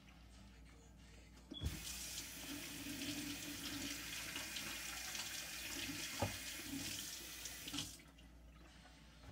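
Steady rush of running water that starts suddenly about a second and a half in and cuts off about six seconds later, with a few knocks along the way.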